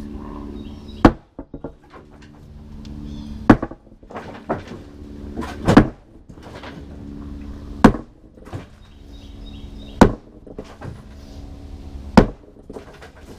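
Mini excavator bucket pounding a concrete slab: six sharp hits about two seconds apart, over the steady running of the excavator's engine.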